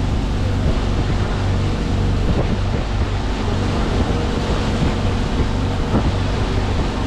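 A boat engine running steadily with a low hum, under loud rushing water and wind noise on the microphone.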